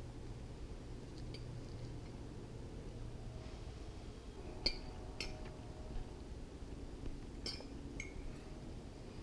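Metal fork clinking against a ceramic plate as it cuts into a soft omelette: several sharp, ringing clinks, the loudest about halfway through, over a faint low hum.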